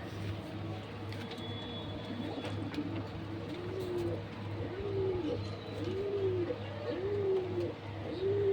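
Pigeons cooing: a series of low, rounded coos about one a second, starting a few seconds in.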